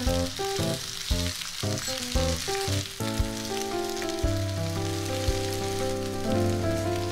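Chicken pieces, then chicken and eggplant, frying in oil in a frying pan, with a steady sizzle. Background music with held melodic notes plays over it.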